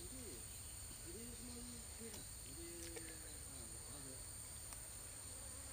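Faint, steady high-pitched insect chorus of crickets or cicadas, with a low wavering hum drifting up and down in pitch, typical of mosquitoes flying close around the microphone.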